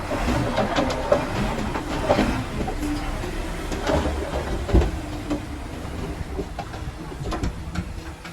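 Komatsu D31A crawler bulldozer's diesel engine running under a low rumble, with irregular metallic clanks and knocks from its tracks and the stone it is pushing.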